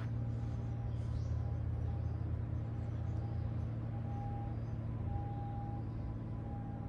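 Steady low mechanical hum, even throughout, with faint higher tones coming and going.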